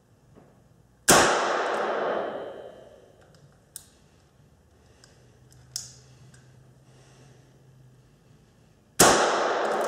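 Two shots from a Harrington & Richardson 949 .22 Long Rifle revolver, about eight seconds apart, each echoing for a couple of seconds in an indoor range. The revolver has a freshly fitted, stronger all-steel mainspring meant to cure light-strike misfires, and both rounds go off. Two small clicks come between the shots.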